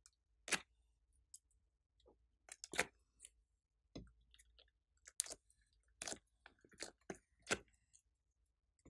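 Sticky slime being handled: slime hearts peeled out of a silicone mould and pressed into a tray of slime, giving a series of short, separate squishes and sticky clicks.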